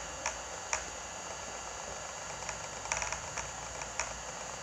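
Light clicks and taps of a DJI Mavic Pro drone's plastic body being handled and stood upright on a table: a few single clicks, then a quick rattly run of them about three seconds in, over a steady faint hiss.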